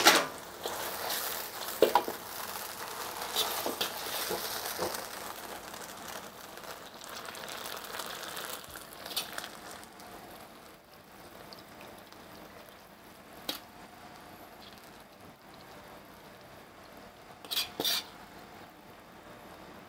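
Food sizzling in a hot wok, with sharp metal clinks of the utensils, dying down about halfway. A couple of clinks near the end.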